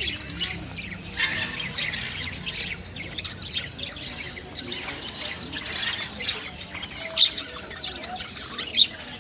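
Parrots squawking and chattering in a dense run of short, high calls, with a few sharper, louder squawks near the end.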